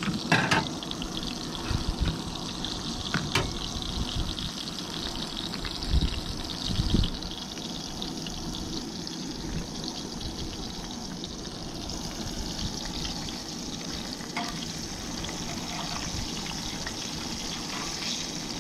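Pieces of yellow bullhead catfish frying in a pan of hot oil: a steady sizzle and bubbling. A few dull knocks come in the first seven seconds.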